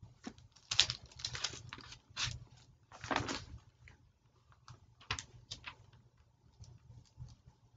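Paper rustling from Bible pages being leafed through in a search for a verse, in several short bursts with a few light clicks and taps.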